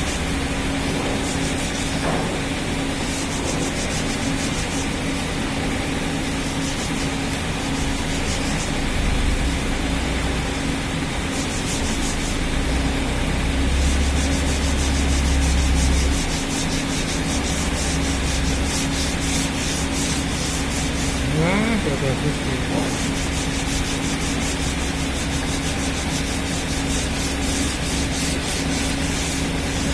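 Repeated rubbing strokes on hardwood decking in the course of repairing a crack, heard over a steady machine hum.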